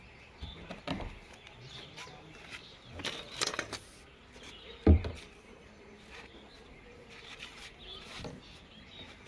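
Scattered knocks and clicks of long white plastic water pipes being handled and fitted together, with one sharp, much louder thump about five seconds in.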